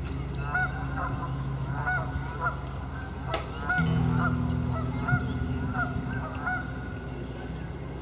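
Geese honking repeatedly, a run of short calls about two a second, over a low steady hum.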